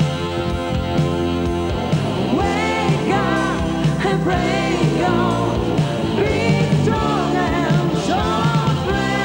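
Rock music with a singing voice over held chords and a steady drum beat, the vocal line entering about two seconds in.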